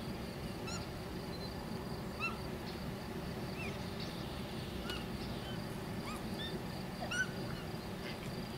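Bonobos giving short, high-pitched calls, about eight brief arched notes scattered through, over a faint steady high insect-like tone and outdoor background noise.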